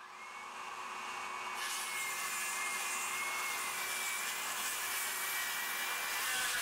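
Flex 24V brushless 6.5-inch inline circular saw, fitted with a 24-tooth framing blade, cutting through a 2x12 pine board. The motor spins up, and about a second and a half in the blade bites into the wood; from then on it cuts steadily, with a constant whine under the rasp of the blade.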